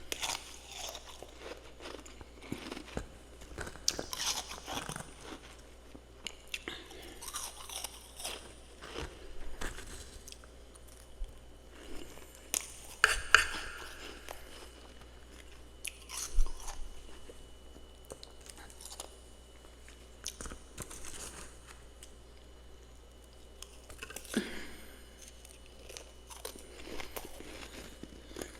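Close-up chewing and crunching of powdery freezer and humidifier frost, with bites and crunch bursts coming in clusters. The loudest crunch comes about 13 seconds in.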